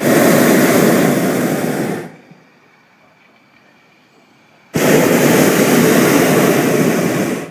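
Hot air balloon's propane burner firing in two blasts of a few seconds each, with a pause of about two and a half seconds between; the second blast starts suddenly.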